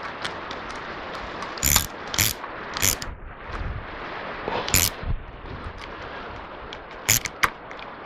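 Sharp metal clicks and clanks, about six of them at uneven intervals, from hand-fitting wire-rope cable hardware (thimbles and cable clamps) on a steel sawmill frame, over a steady background hiss.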